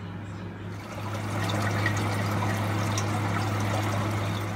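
Cold tap water running and splashing onto cut watermelon rinds in a stainless steel colander; it gets louder about a second in and stays steady. A steady low hum runs underneath.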